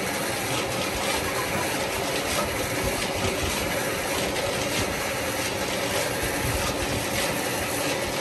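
An electric water pump running steadily, with a constant hum and an even hiss of pumped water pouring out. It is draining a flooded paddy field into the river.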